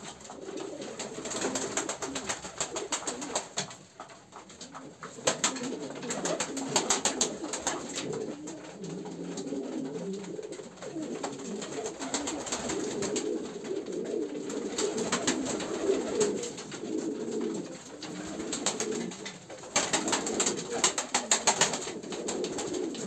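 A flock of Stawak pigeons cooing continuously in a small wooden loft. Two spells of rapid wing-clapping flutter come in, one about five to eight seconds in and one near the end, as birds take off and flap.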